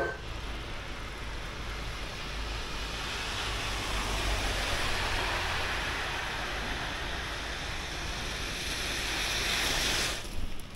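Steady rushing outdoor noise of wind buffeting the microphone, with a low rumble and a hiss, growing somewhat louder toward the end and cutting off suddenly.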